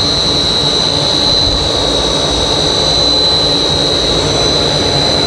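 High-speed blown film extrusion machine running: a steady, loud rush of air and machinery with a constant high-pitched whine over it.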